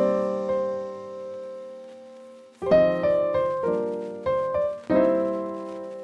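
Background piano music: a chord rings and fades, then a quick run of struck chords follows, and a last chord is left ringing.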